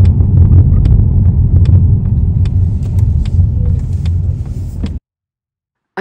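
Steady low tyre-and-road rumble inside the cabin of an electric car driving along a highway, with a few faint ticks; it cuts off suddenly about five seconds in.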